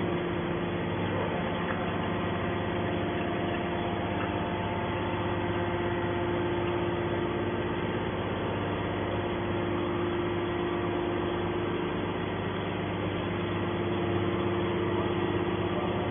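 Scrap baler's engine-driven hydraulic power unit running steadily: a constant machine drone with a steady hum.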